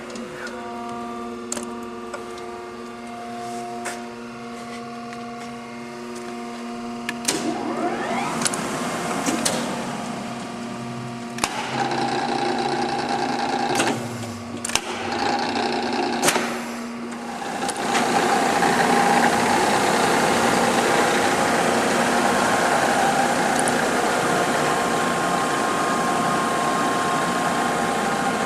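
Cincinnati universal cylindrical grinder running under power. A steady motor hum is broken by several sharp clicks. About seven seconds in comes a rising whine as something spins up, and from about eighteen seconds in the machine runs louder and steadier.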